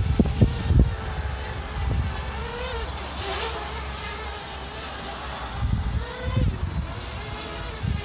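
Parrot Bebop 2 quadcopter's propellers whining as it hovers in wind, the pitch wavering up and down as the motors correct. Gusts of wind rumble on the microphone at the start and again about six seconds in.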